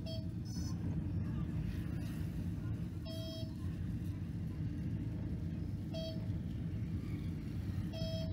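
Steady low rumble of a vehicle driving, heard from inside the cabin, with short horn toots about three seconds in, once briefly at six seconds, and again near the end.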